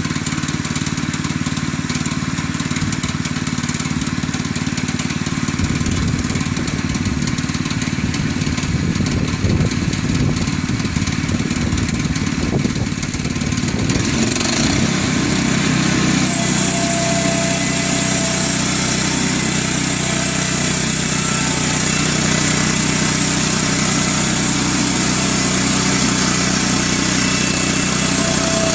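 Woodland Mills HM122 portable bandsaw mill's gasoline engine idling, then rising to a higher, fuller run about halfway through as the head is pushed into the cut. A steady high whine joins shortly after and holds while the band blade saws through the log.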